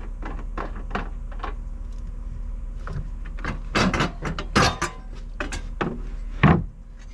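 Tools and hardware clicking and knocking while the platform is bolted into the Jeep's cargo area: a run of light clicks, then louder metallic knocks from about four seconds in, over a steady low hum.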